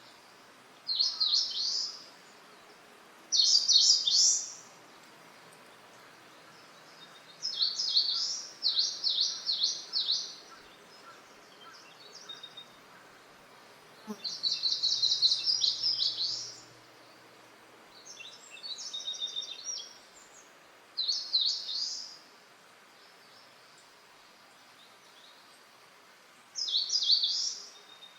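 A wild bird singing short phrases of quick chirping notes, each about a second long, repeated every few seconds with pauses between, over a faint steady hiss.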